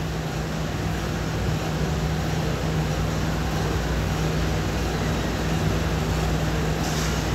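A steady low hum over an even hiss of background noise, with a brief higher hiss near the end.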